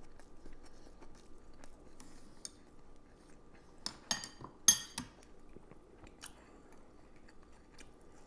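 A person eating: quiet chewing, with a few sharp clinks of utensils against a dish about four to five seconds in.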